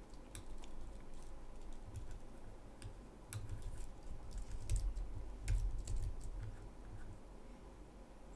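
Computer keyboard typing: scattered single keystrokes as CSS values are edited, with a few low thuds around the middle.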